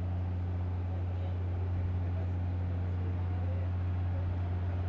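Steady low droning hum of a coast guard patrol vessel's onboard machinery, heard from on deck, with a faint noisy wash underneath.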